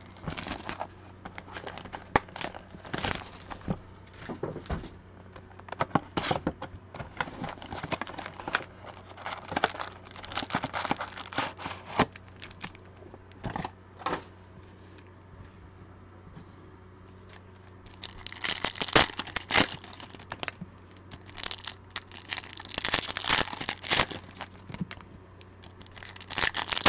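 A 2020 Panini Legacy Football hobby box being torn open and its foil card packs handled, crinkling and tearing in bursts of crackly rustling. The rustling thins out for a few seconds past the middle, then picks up again.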